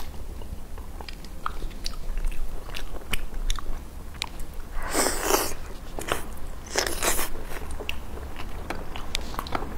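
A person biting and chewing fatty braised pork belly, with many small mouth clicks and two louder, longer bursts around the middle.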